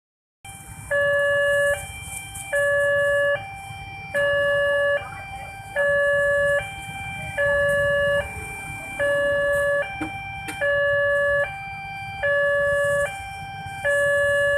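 Railway level-crossing warning alarm: an electronic signal alternating between a lower and a higher tone, each held just under a second, warning that a train is coming while the barriers are down.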